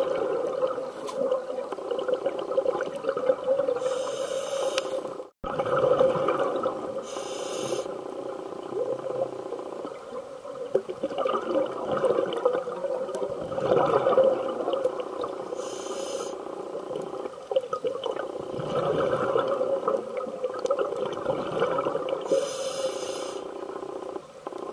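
Muffled underwater sound through a sealed camera housing: a scuba diver's regulator breathing and bubbling. A short hiss comes every few seconds, and the sound cuts out briefly about five seconds in.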